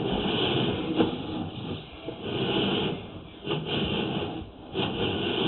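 Rumbling clatter of a sewer inspection camera and its push cable being worked through the pipe, with a few sharp knocks about one, three and a half, and four and three-quarter seconds in.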